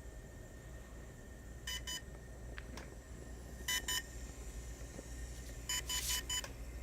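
Short electronic beeps from a DJI Phantom 3 Standard drone: a pair of quick beeps, another pair about two seconds later, then four in a row near the end.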